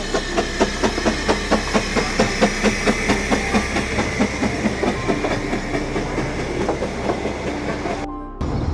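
Narrow-gauge steam train on the Ffestiniog Railway rolling along, with a steady rhythm of sharp clicks about four a second over a hiss. It cuts off abruptly near the end.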